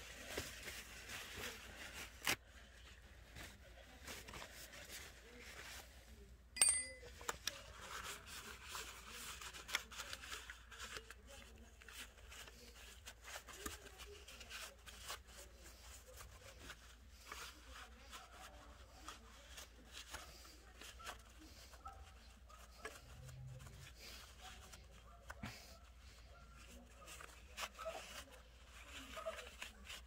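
Paper towel and scraper rubbing and scraping caked sawdust and bar-oil grime off a chainsaw's clutch drum and sprocket cover area, in faint scattered scrapes and small clicks. A sharper knock comes about six and a half seconds in.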